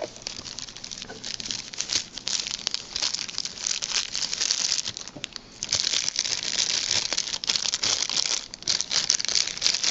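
Clear plastic packaging bag crinkling and rustling as hands unwrap sunglasses from it, dropping off briefly about five seconds in, then crinkling steadily again.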